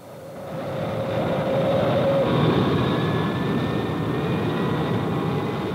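Jet airliner takeoff noise, played as a sound effect for a simulated takeoff: a steady rush of engine noise that swells over the first second or so and holds, with thin turbine whines above it, a few slowly rising in pitch.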